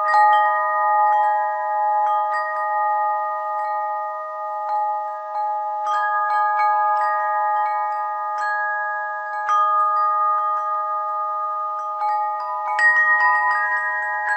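Bell chimes ringing in overlapping notes at several steady pitches, struck every second or so at irregular moments, with a louder cluster of strikes near the end.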